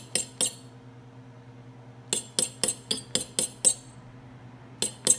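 A metal fork whisking egg whites by hand on a ceramic plate, clinking against the plate about four times a second. The strokes come in bursts with pauses of about a second between them. The whites are already whipped to a thick foam.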